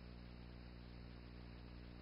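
Near silence: a steady low electrical hum with faint hiss, the noise floor of a soundless old film transfer.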